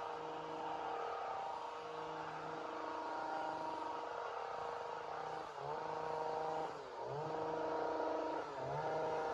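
Two-stroke chainsaw engine running at high speed, a steady buzzing note. In the second half it dips briefly in pitch three times and picks back up each time, as if bogging under a cut or eased off the throttle.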